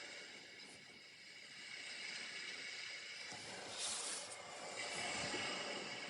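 Paintbrush working on watercolor paper: faint scratchy brushing, with two short louder strokes about four and five seconds in, over a steady low hiss.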